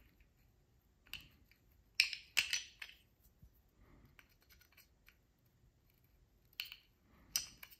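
Small metal clicks and scrapes from a Glock front-sight tool turning the front sight screw out of a Walther PDP pistol slide. The clicks come in scattered bunches, loudest about two seconds in, with a few more near the end.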